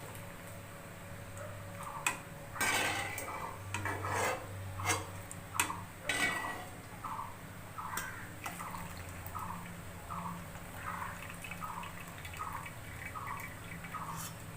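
A metal utensil clinks against a pot while water splashes and drips, most of it in the first half, as boiled yam leaves are lifted out of their cooking water. Behind it, a short chirp repeats about twice a second.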